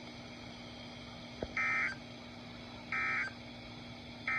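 Emergency Alert System (SAME) end-of-message data bursts: three short, identical digital tone bursts about 1.4 s apart, the coded signal that closes an EAS alert. A faint steady hum runs underneath.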